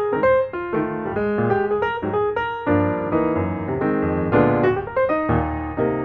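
Background piano music: a keyboard playing a quick run of notes over chords.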